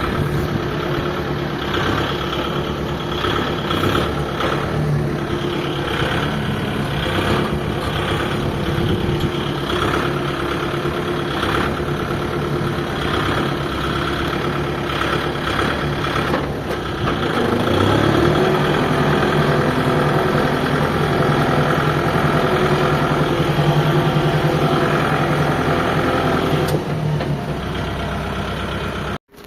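Diesel engine of harvesting machinery running steadily. About 18 seconds in, it rises in pitch and gets louder as it revs up, then holds there until it cuts off suddenly near the end.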